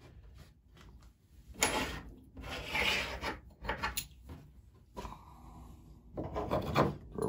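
Wooden parts of a homemade grinder sharpening jig being handled, slid and tightened on a wooden bench: a few short rubbing and scraping sounds of wood on wood.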